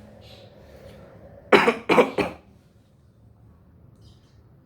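A person coughing three times in quick succession, about a second and a half in.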